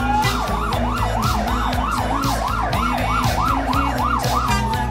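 Fire truck's electronic siren. A slow rising wail switches just after the start to a fast yelp, about two and a half cycles a second, then changes to a slow falling wail near the end. Music with a steady beat plays underneath.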